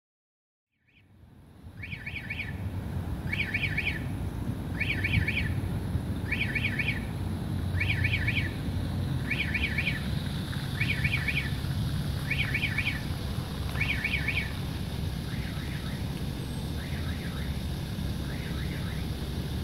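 Railroad crossing warning bell ringing in short bursts of about four quick high strikes, repeating roughly every second and a half, growing fainter after about fifteen seconds, over a steady low rumble.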